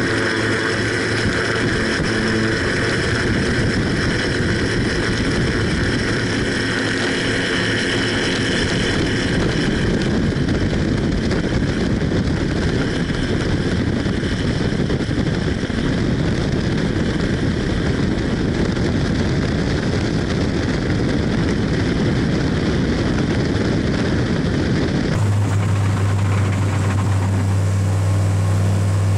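Che-29 seaplane's twin Rotax 912 engines and propellers running steadily under a heavy rushing noise, their pitch rising slightly at the start. About 25 seconds in the sound changes abruptly to a steadier engine drone with a strong low hum.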